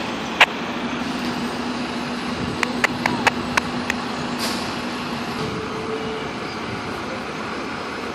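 Idling fire trucks in steady city traffic noise, with a steady low hum that stops about five seconds in. A sharp click comes about half a second in, a quick run of clicks around three seconds, and a brief hiss about four and a half seconds in.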